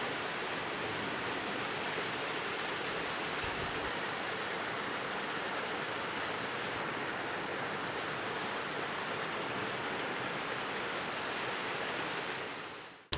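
Waterfall's steady rush of falling water, an even hiss that fades out near the end.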